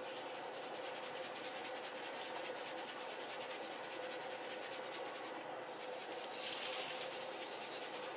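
Spice container being shaken or ground over a roasting pan: a fast, even rasping rhythm, then a brief louder rasp near the end.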